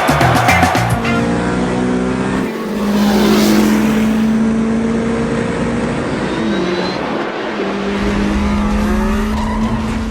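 Music cuts out about a second in and gives way to car engines running, their pitch gliding up and down as they pass, with a swooshing noise about two to four seconds in.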